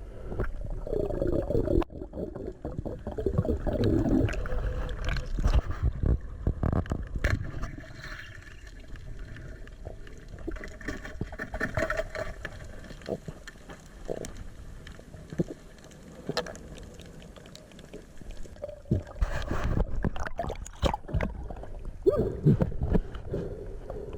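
Underwater camera audio: gurgling water and bubbles with scattered clicks and knocks, swelling near the start and again near the end.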